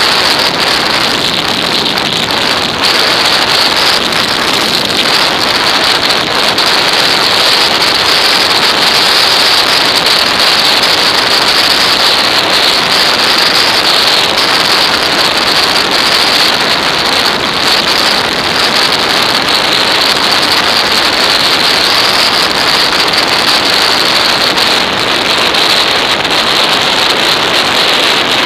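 Wind rushing over the microphone of an action camera on a motorcycle riding at speed, a loud, steady, unbroken noise that buries the engine.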